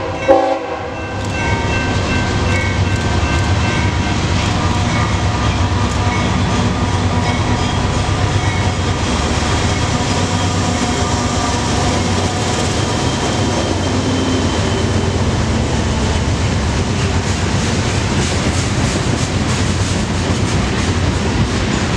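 A train rolling past close by: the last short horn blast ends just after the start, then a steady rumble of wheels on rail, with rapid clicking over the rail joints toward the end.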